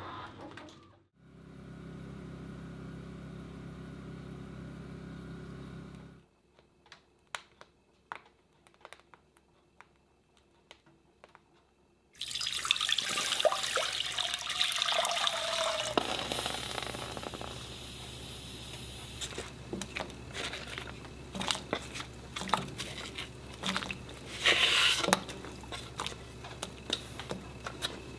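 Water poured from a bowl into a large enamelled cast-iron pot: a loud rush of pouring that starts suddenly about twelve seconds in and eases off a few seconds later. It is followed by many sharp taps and clicks of a knife slicing fruit on a wooden cutting board. Before the pouring come a few seconds of steady low hum and then near quiet with scattered ticks.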